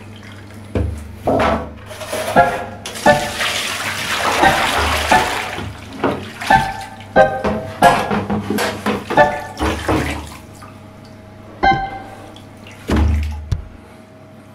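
Water splashing in a bathtub as a clogged carbon cabin air filter is rinsed, with a rush of running water about three seconds in lasting a couple of seconds. Short, ringing knocks sound throughout as the filter and a plastic bowl are handled against the tub.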